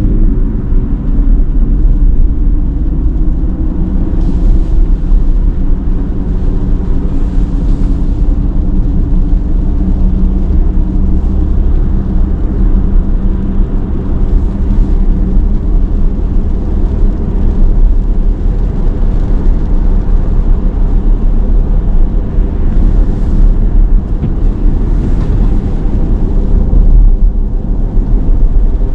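Cadillac Lyriq electric SUV driving on wet road: a steady low road and tyre noise, with brief hissing swells a few times.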